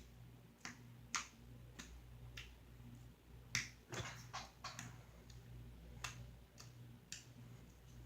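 Fingers poking glossy green slime, each poke a small sharp click or pop, about one every half second with a quicker run of them around four seconds in. A faint steady hum underneath.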